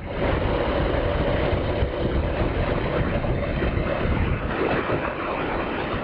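Suzuki GS500E motorcycle's parallel-twin engine running steadily at cruising speed, heard from the rider's helmet camera under a steady rush of wind noise.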